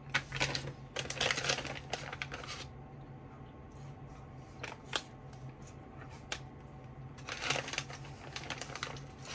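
Two spells of rapid light tapping on a computer keyboard, the first in the opening few seconds and the second about three-quarters of the way through, with a few single clicks between, over a steady low hum.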